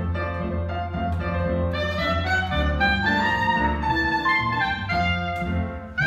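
Jazz trio of clarinet, piano and plucked double bass. Bass and piano play alone at first, then the clarinet comes in about two seconds in with a melodic line.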